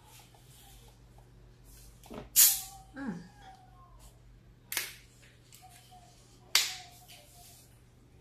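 A plastic soda bottle being picked up, handled and set down close to the microphone: a few sharp crackles and knocks, the loudest about two and a half seconds in, with others near five and six and a half seconds.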